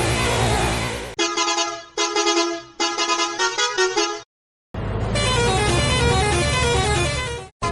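Edited bus horn sound variations: a musical horn plays a melody in short separate notes, then after a brief silent cut the horn melody returns over backing music with a bass line.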